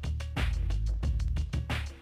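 Background music with a steady beat, a strong bass line and regular cymbal swells.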